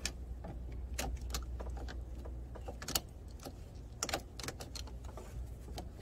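Irregular sharp metallic clicks and rattles, about eight of them, as a jumper-cable clamp is handled and clipped onto the truck's positive terminal.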